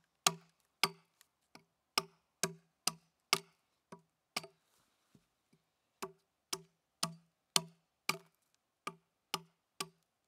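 Hatchet chopping into a debarked log: a regular run of sharp woody chops, about two a second, each a dull thud with a crack, with a short lull about halfway through.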